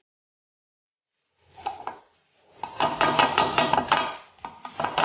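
Plastic hand citrus juicer clattering on its glass jug: a lime half is ground on the reamer and the plastic top knocks and rattles against the jug, a dense run of clicks and knocks lasting about two seconds in the middle.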